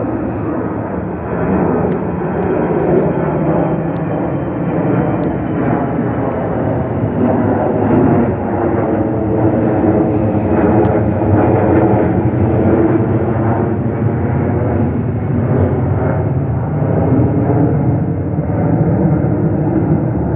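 Airbus A321 jet airliner passing by, its engines making a loud, steady rush with a faint high tone that falls slowly in pitch over the first several seconds.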